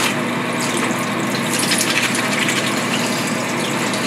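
Tap water running into a bathroom sink, with splashing as a garment is scrubbed by hand under it.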